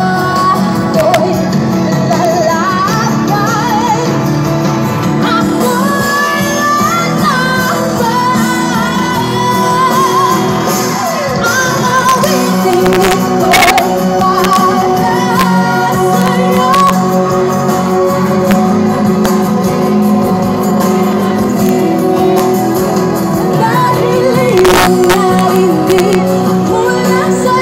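Live pop music through a loud PA, with a woman singing a wavering melody into a microphone over the band, heard from within the crowd.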